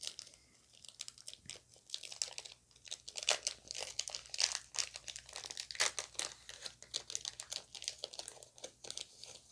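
Foil wrapper of a Pokémon trading card booster pack crinkling and tearing as it is opened by hand, with a run of irregular crackles.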